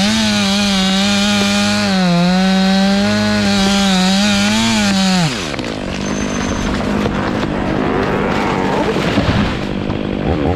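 Stihl chainsaw cutting through a thick poplar trunk at full throttle, its pitch dipping and recovering as the chain bogs in the wood. About halfway through the throttle is released and the engine note falls away. The rest is a rougher, quieter stretch of noise with a few sharp cracks near the end.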